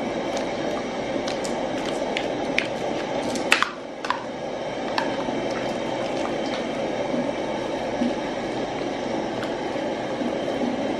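A metal spoon stirring chunks of meat and fish in a steel pot of soup: wet squelching with scattered light clinks of the spoon against the pot, over a steady background hiss.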